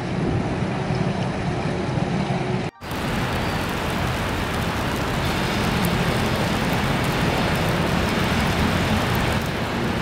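Steady outdoor city ambience in heavy snowfall: a low rumble of distant traffic with a wind-like hiss. About three seconds in it cuts off abruptly and picks up again as a similar but slightly brighter hiss.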